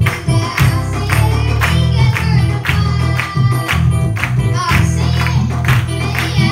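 Two children singing a Tamil Christian worship song into microphones over amplified electronic keyboard accompaniment, with a strong bass and a steady beat about two strokes a second.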